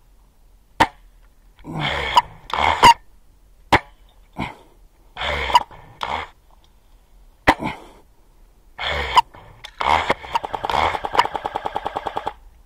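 Airsoft gunfire: a few single sharp shots spaced several seconds apart, with short rasping noises in between, then about two seconds of rapid automatic fire near the end, some nine shots a second.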